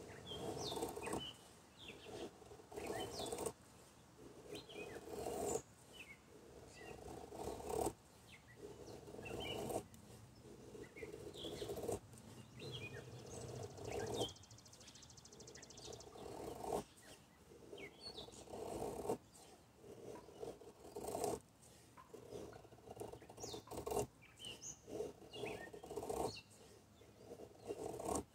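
ESEE RB3 knife blade shaving thin curls off a soft pine stick while making a feather stick: slow, repeated scraping strokes about every two seconds, each ending abruptly as the cut stops.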